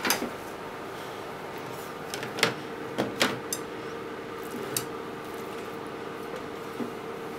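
A few sharp knocks and clatters as wooden chopsticks and a steel kitchen knife are put down and moved on a plastic cutting board, loudest about two and a half to three seconds in, over a steady low hum.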